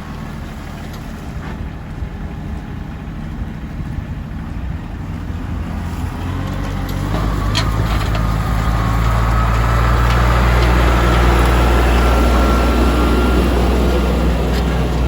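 Tractor engine running, growing louder about halfway through with a faint rising whine, as it works under load.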